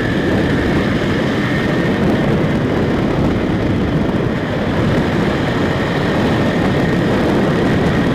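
Motorcycle riding along at a steady speed: a constant rush of wind buffeting the bike-mounted microphone, with the engine and tyre noise underneath.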